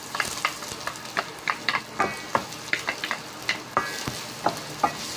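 Wooden spoon stirring chopped garlic, ginger and onion as they sizzle in hot oil in a stainless steel pan, with irregular clicks and scrapes of the spoon against the pan.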